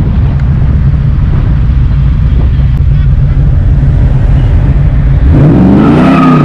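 Car engine and exhaust running with a loud, steady low drone as the car cruises slowly down the street. About five seconds in, a pitched sound that wavers up and down joins in for a second or so.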